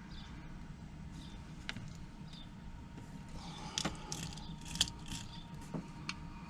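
Small metallic clicks and scrapes of a pin-tumbler lock cylinder being handled and rekeyed, thickest in the second half, over a steady low hum.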